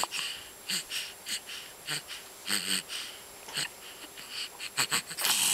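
Young baby's short, breathy, wheezy huffs of excited breathing, one every half second to second, coming faster and running together near the end, just before he breaks into cooing.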